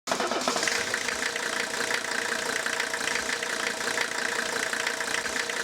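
Steady machine running noise with a few constant tones over a hiss, starting abruptly.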